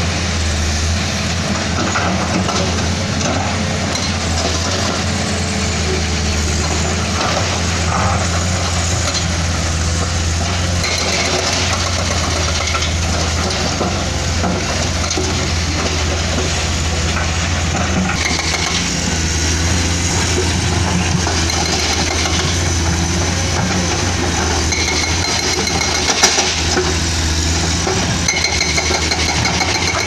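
Hydraulic excavator's diesel engine running steadily under load, with broken limestone clattering and scraping against the steel bucket as it digs.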